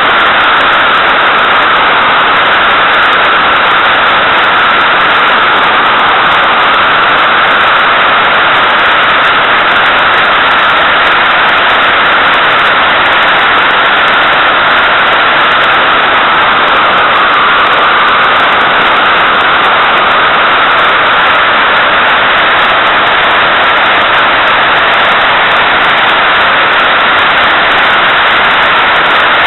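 Loud, steady rush of airflow over the microphone of a small camera mounted outside a Puchacz glider in gliding flight. It is an even hiss with a slowly wavering band in the middle and no engine sound.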